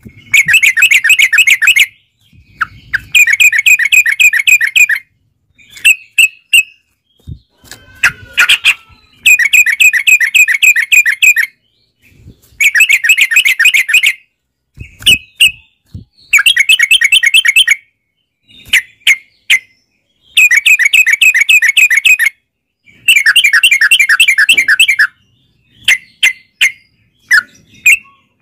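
Yellow-vented bulbul singing: loud bursts of rapid chattering notes, each about two seconds long and repeated about every four seconds, with short single chirps in between.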